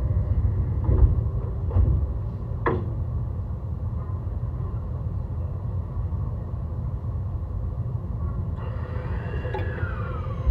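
Low running rumble of an E131 series electric train heard from on board, with a few sharp clicks in the first three seconds. Near the end a whine from the Hitachi hybrid SiC inverter drive sets in, gliding up and then falling in pitch.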